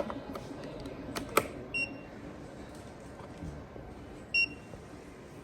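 Alarm beeper of an APC SRT2200XLI UPS giving short high beeps, two of them about two and a half seconds apart, with a few sharp clicks just before the first.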